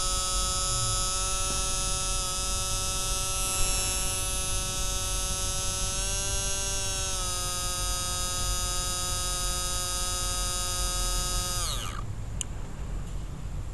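Small electric fuel pump running steadily with a hum as kerosene is pumped into the truck's tanks; its pitch lifts slightly about halfway through, then winds down and stops near the end.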